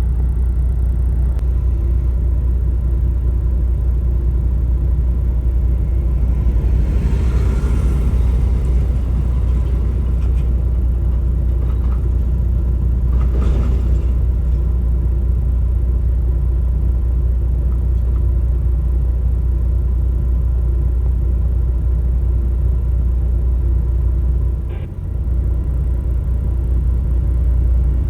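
Truck's diesel engine idling with a steady deep drone, heard from inside the cab. Two brief rushing noises swell up about 7 and 13 seconds in.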